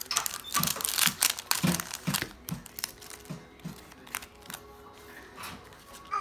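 Pokémon booster-pack wrappers crinkling as they are shuffled and handled in the hands. The crackles come thick and loud at first, then turn sparse and quieter in the second half.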